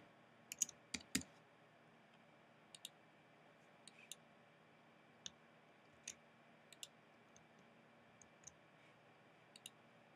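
Computer keyboard keys and mouse buttons clicking: a quick cluster of taps about a second in, then single clicks spaced a second or so apart, faint over quiet room tone.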